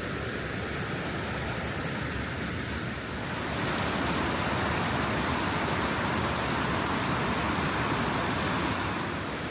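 Water rushing over small waterfalls: a steady hiss that grows louder about three and a half seconds in.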